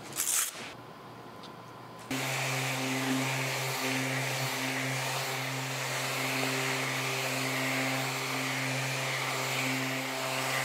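Electric random orbital sander with a dust-extraction hose switching on abruptly about two seconds in and running steadily with a hum and hiss. It is sanding a laser-engraved wooden sign with 220-grit paper to clean the char fuzz from around the lettering.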